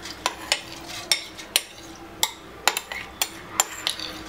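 A metal spoon clinks and scrapes against a white plate, about ten sharp irregular clicks, as rice is pushed off the plate into a pressure cooker pot.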